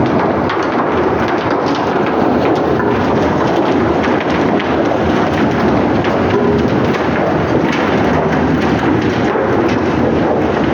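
Steady loud rumbling roar of heavy machinery in a nickel smelting plant, with faint scattered clicks and rattles.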